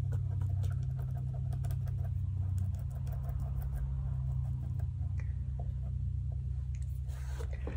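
Faint small clicks and scratching as hide glue is worked under loose veneer with a small stick, over a steady low hum.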